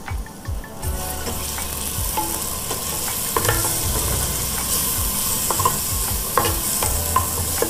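Chopped onion, tomato and green chillies sizzling in oil in a clay pot while a wooden spatula stirs them. The sizzle picks up about a second in, with a few knocks and scrapes of the spatula against the pot. The tomato-onion base is being half-fried before the ground masala goes in.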